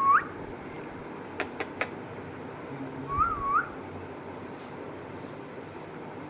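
Indian ringneck parrot whistling: a short rising whistle, then about three seconds in two quick rise-and-fall notes. Three sharp clicks come in between.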